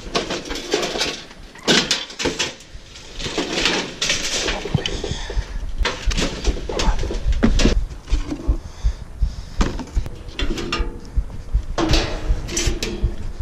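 Repeated knocks, clatter and scraping of junk and scrap being handled, a run of sharp irregular impacts.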